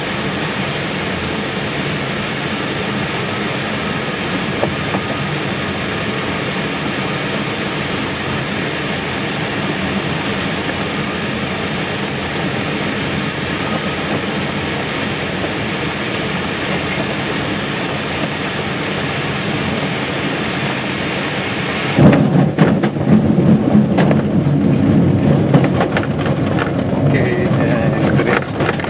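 Airflow rushing over a Schempp-Hirth Duo Discus glider's cockpit canopy, a steady hiss on the engineless final approach. About three-quarters of the way in, the wheel touches down and a louder, uneven rumble with knocks and clicks follows as the glider rolls over the grass strip.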